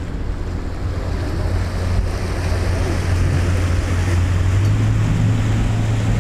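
Tour boat's engine running with a steady low hum that grows a little louder about halfway through, under wind on the microphone and water rushing past the hull.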